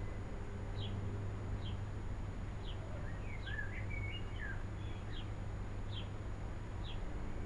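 Small-bird chirping at a European robin's nest while the adult feeds its young. A short, thin, high call repeats about once a second, with a brief burst of twittering about three seconds in, over a steady low hum.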